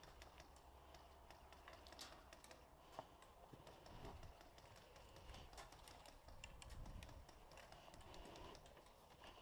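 Near silence broken by faint, scattered small clicks and ticks.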